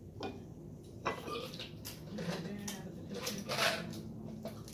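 Scattered clicks and clinks of plates, utensils and seafood shells being handled while eating crab legs and lobster, a few sharp ones spread through.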